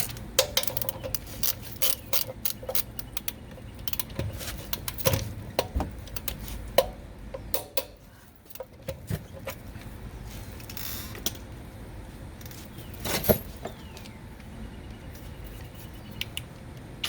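Hand ratchet clicking in short runs as a lug nut is tightened by hand, with scattered clicks and knocks of tools being handled and one louder clack near the end.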